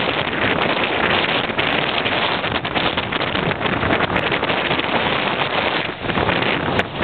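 Water rushing and foaming along the hull of a sailboat under way, with steady wind buffeting the microphone.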